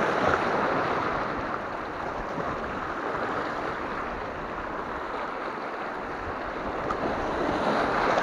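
Sea waves washing and splashing over a rocky shore, a steady rush that swells loudest at the start and again near the end.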